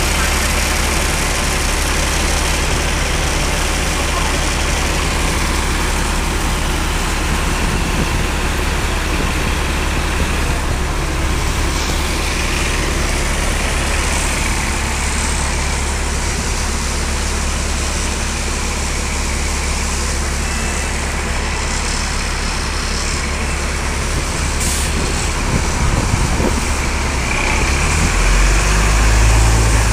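Steady roadside traffic noise with double-decker buses running. Near the end a Citybus Alexander Dennis Enviro 500 double-decker pulls away close by, and its deep engine rumble grows louder.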